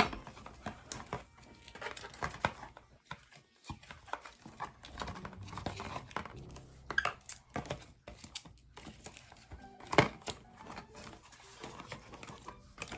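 Wrapped fruit rolls crinkling and rustling as they are handled and pushed into a plastic snack box, with irregular clicks and knocks of plastic; one sharper knock about ten seconds in.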